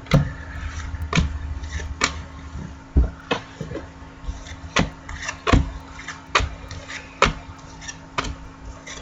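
Football trading cards being flipped through one at a time, each card giving a crisp click or snap, about one to two a second. A low rumble runs under the first three seconds or so.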